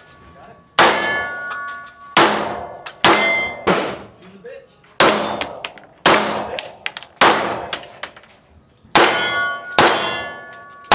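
Gunshots fired one at a time, about nine in all at irregular intervals of roughly a second, each followed by the ringing clang of a struck steel target.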